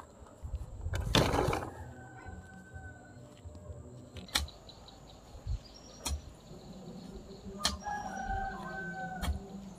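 A loud noisy burst about a second in, then four sharp knocks spaced about a second and a half apart. A rooster crows twice in the background.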